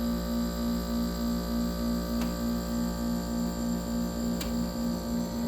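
2002 Friedrich Quietmaster window air conditioner running at full compressor, its LG rotary compressor giving a steady hum that pulses about four times a second, with two faint clicks.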